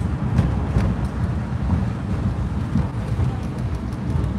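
Car cabin noise while driving: a steady low rumble of engine and road, with a few light clicks.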